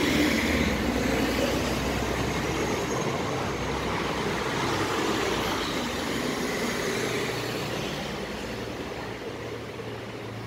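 City street traffic: a passing vehicle's engine and tyre rumble is loudest near the start and slowly fades, over the general noise of road traffic.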